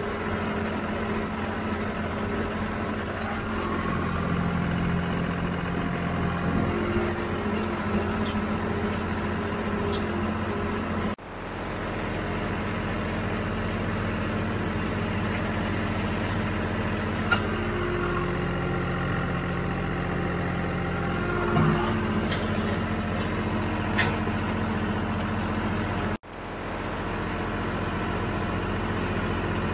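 John Deere tractor engine running steadily under load while it pulls a box grader along a dirt road. The sound breaks off abruptly twice, about 11 and 26 seconds in, then carries on unchanged.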